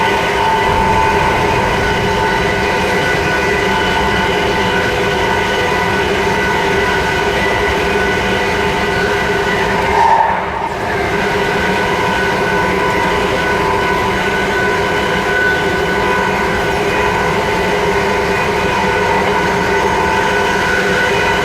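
Class 357 Electrostar electric multiple unit running at a steady speed, heard close up between the carriages: a constant whine from the traction equipment over the rumble of wheels on rail. About ten seconds in it briefly swells, then drops for a moment before settling back.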